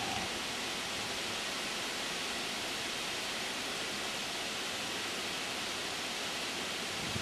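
Steady, even hiss with no distinct sound events.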